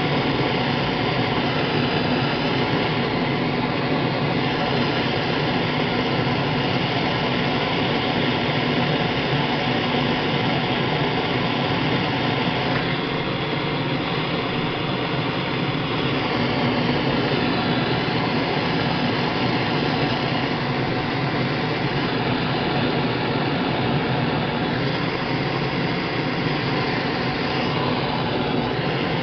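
Propane torch flame burning steadily, a constant hiss with a faint hum underneath, as it heats an aluminium brake lever to soften it.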